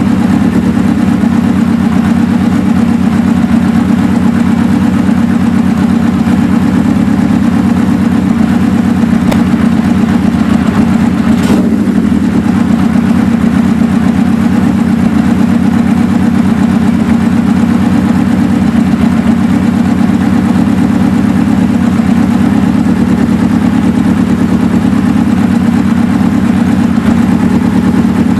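Suzuki GS550's air-cooled inline-four engine idling steadily, at an even speed, while its carburettor idle mixture is tuned with a Colortune plug in one cylinder.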